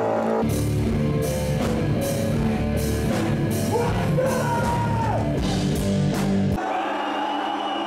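Heavy metal band playing: drums and distorted guitars come in about half a second in, with a sung vocal line over them. About a second before the end the drums and bass drop out abruptly, leaving a thinner sound.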